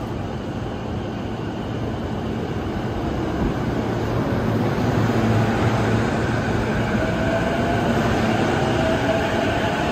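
Sotetsu 12000 series electric train pulling out and gathering speed: a rumble of wheels and running gear that grows steadily louder, with a faint motor whine rising in pitch in the later seconds.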